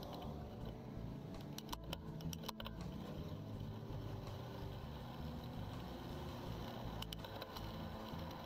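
Steady low rumble of traffic and road noise, with a few sharp clicks and rattles about two seconds in and again near the end.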